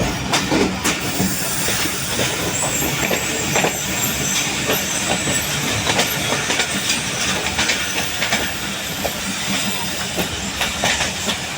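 Passenger train running on the track: wheels clicking and clattering irregularly over rail joints over a steady rumble and hiss.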